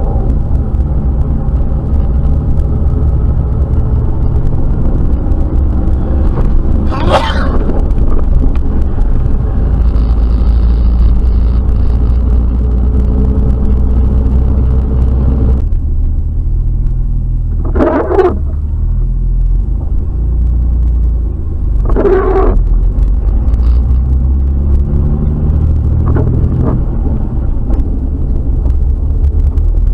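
Jeep Wrangler TJ driving on wet pavement, heard from a dashcam inside the cab: a steady low engine and road rumble whose pitch rises a few times as it speeds up, with brief louder rushing noises about 7, 18 and 22 seconds in.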